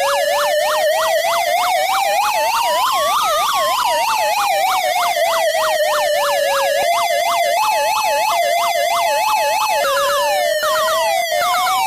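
Argentine police car's electronic siren sounding two tones at once: a slow wail rising for about three seconds and falling again, with a fast yelp of about three sweeps a second over it. About seven seconds in it switches to a two-note hi-lo warble, and near the end the wail and yelp come back.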